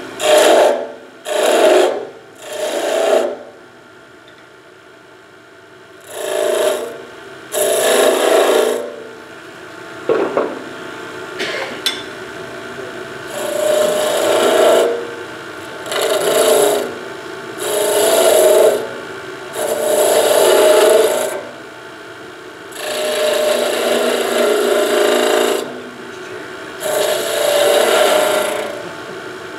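Skew chisel cutting wood on a spinning spindle on a wood lathe: about a dozen separate rasping cuts of a second or two each, with a quieter stretch of a few seconds early on while the lathe runs.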